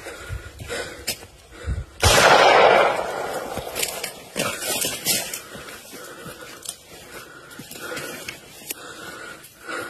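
A single loud gunshot about two seconds in, with a noisy tail that dies away over about a second. Scattered smaller knocks follow.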